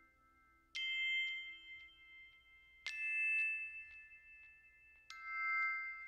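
Three bell-like chime notes, each struck and left ringing, about two seconds apart, in soft background music.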